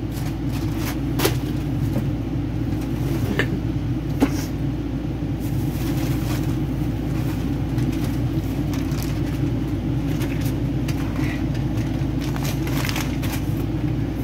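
A steady low mechanical hum runs throughout, with scattered clicks and rustling as things are rummaged through and handled close by.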